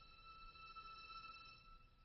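Near silence, with a faint steady ringing tone fading out.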